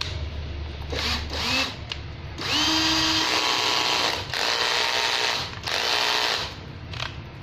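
National two-function cordless drill-driver's motor run on the trigger in about five separate bursts, each spinning up with a rising whine and stopping, at changing speeds as the trigger is squeezed harder or softer.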